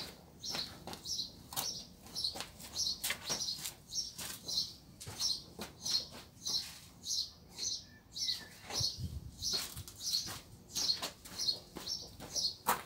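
A small bird chirping over and over, one short high chirp roughly every two-thirds of a second.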